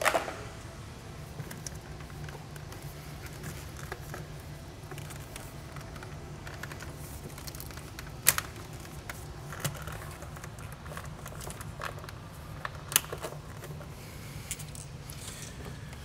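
Scattered light clicks and knocks of a plastic engine-bay cover and its fasteners being handled and worked loose, the sharpest about eight seconds in and near thirteen seconds, over a steady low hum.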